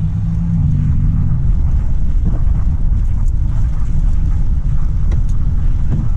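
Car driving on a wet road, heard from inside the cabin: a steady low rumble of engine and road noise.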